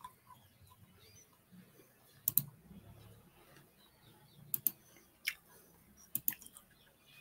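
Computer keys clicking now and then: a pair of sharp clicks about two seconds in and several more in the second half, over quiet room tone.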